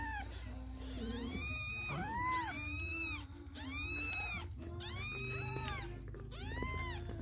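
A seven-day-old kitten mewing: about five high, thin cries, each rising and then falling in pitch. The loudest come in the middle stretch.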